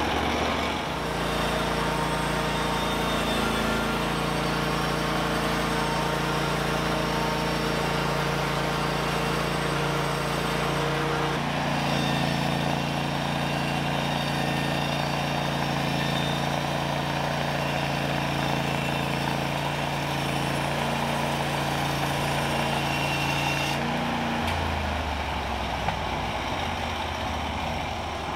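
Portable band sawmill's gas engine running steadily. Its note shifts about a third of the way through, then drops lower near the end before fading.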